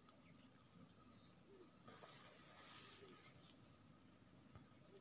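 Faint, steady, high-pitched drone of an insect chorus.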